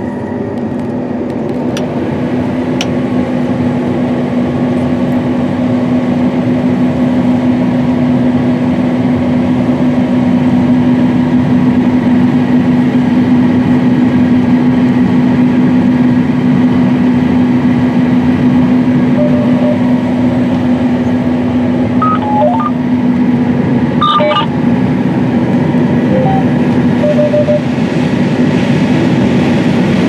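John Deere S790 combine running under load while harvesting corn, heard from inside the cab: a loud, even drone of engine and threshing machinery with a steady hum. Near the end a few short electronic beeps sound.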